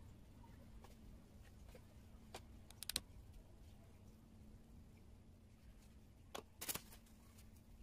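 Near silence with a faint steady hum, broken twice by a short cluster of light taps and scratches, about two and a half seconds in and again near the end: a round watercolour brush dabbing paint.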